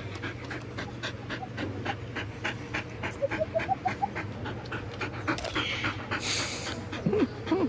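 Golden retriever panting close to the microphone in quick, even breaths, about four a second, with a short louder hiss of breath about six seconds in as its nose comes right up to the microphone.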